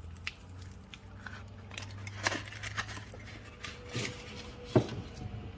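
Cardboard tubes and paper pieces of a cut-open firework fountain being handled: scattered light knocks and rustles, the loudest knock near the end.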